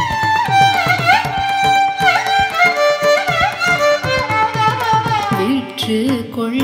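Carnatic music instrumental interlude in raga Madhyamavathi: a violin playing gliding, ornamented phrases over steady hand-drum strokes, with a lower melodic line coming in about five seconds in.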